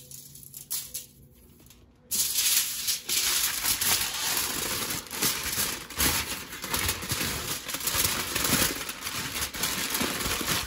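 Aluminium foil crinkling and rustling as it is folded and wrapped around a potato by hand, starting about two seconds in.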